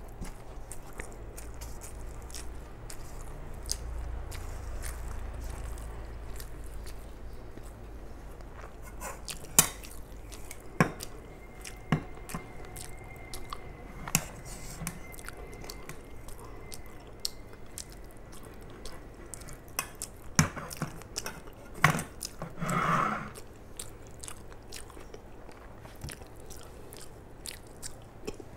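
Close-up mouth sounds of a person eating rice and chicken liver and gizzard curry by hand: steady chewing with frequent small wet clicks and lip smacks. A few sharp clinks of a metal spoon on the serving pan come in the middle stretch.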